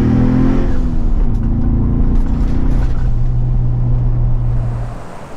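Ford Bronco's turbocharged four-cylinder engine under hard acceleration through a valved catback exhaust with the valves open. The engine note climbs, then holds a steady tone, and falls away sharply near the end as the throttle closes.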